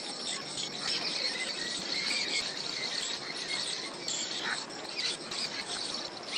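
Steady high-pitched insect trilling, with occasional short bird chirps over it.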